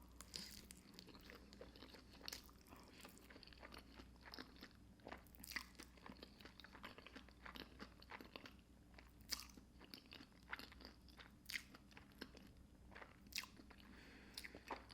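Faint close-up chewing of creamy fettuccine alfredo topped with crushed hot Cheetos, with many small irregular crunches.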